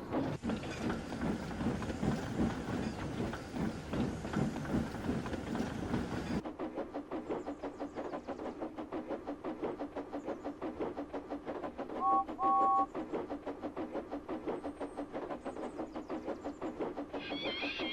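Goods train of freight trucks rattling along the rails: a dense clattering rumble that changes abruptly about six seconds in to a fast, even clicking over the rail joints. About 12 seconds in, an engine whistle gives two short two-note peeps, and near the end a higher sustained tone starts.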